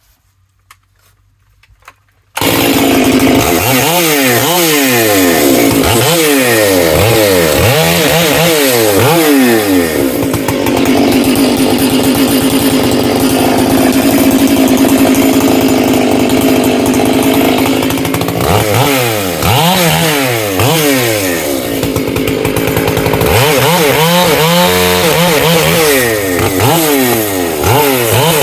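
Two-stroke chainsaw starting up about two seconds in, then revved up and down, held at full throttle for several seconds, and revved again. The high-speed carburettor screw has just been turned in slightly because the saw was running rich, and the owner still judges it a touch too rich on the high end.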